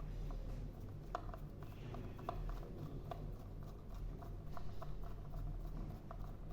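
Hand screwdriver driving a small screw back into the handle mechanism of a smart lock's outdoor unit: faint, irregular small metal clicks and scrapes, over a steady low hum.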